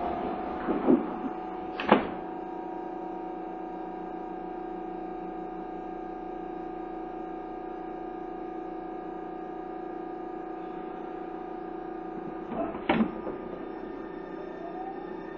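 Tobu 30000 series train running through a subway tunnel, heard from inside the car: a steady hum with several held whining tones over rumbling noise, broken by sharp knocks about 2 seconds in and again around 13 seconds. Near the end the tones begin to rise in pitch.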